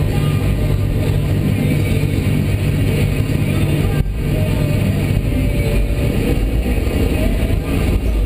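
Komatsu PC300 excavator's diesel engine running steadily under working load, heard from inside the operator's cab, with a momentary dropout about four seconds in.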